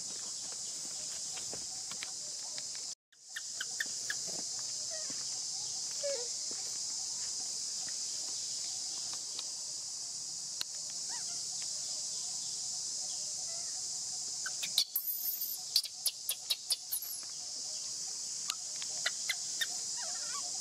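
Steady high-pitched drone of insects, with a quick run of sharp clicks or taps about fifteen seconds in. The sound cuts out completely for a moment about three seconds in.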